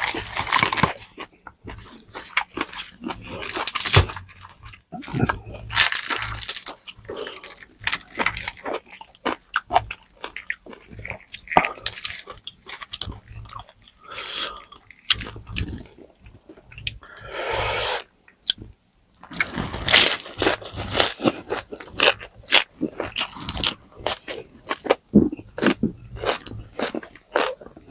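Close-up eating sounds of crispy deep-fried pork leg: repeated crunchy bites and chewing of the crackling skin, with wet mouth sounds between them.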